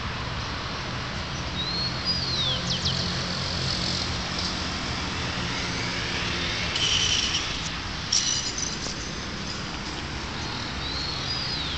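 A songbird calling: a whistled note that rises and then drops steeply, about two seconds in and again near the end, with short buzzy high chirps in between. A steady low hum runs underneath.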